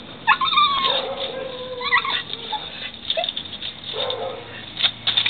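A dog whimpering: a few short, high whines that bend in pitch, the first sliding down into a lower held tone, with quieter whines after it.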